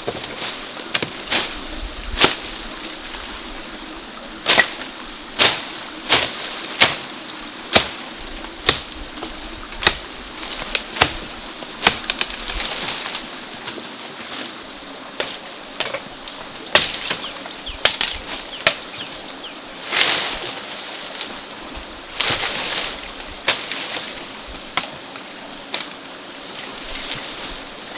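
Sharp knocks or chopping strikes at an irregular pace, roughly one every half second to two seconds, over the steady rush of a mountain stream.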